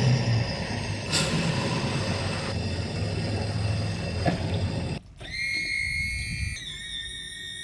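Boat running at speed under Yamaha F350B outboard power: a steady engine drone with a rush of water and wind. About five seconds in the sound cuts off, and a steady high-pitched whine follows that steps in pitch a couple of times.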